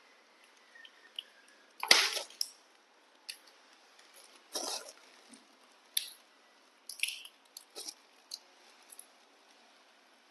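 Pet macaque monkeys cracking and chewing sunflower seeds: scattered short crunches and clicks, the loudest about two seconds in, with quiet gaps between.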